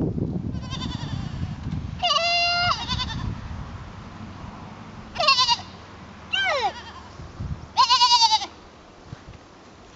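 Young goat bleating: five separate calls, a faint one first, then a loud steady bleat about two seconds in, a short call and one that slides down in pitch around five to seven seconds in, and a loud wavering bleat about eight seconds in.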